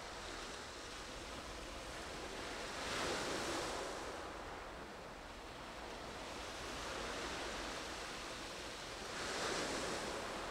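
Sea waves washing against the shore, two of them swelling up about six seconds apart over a steady hiss.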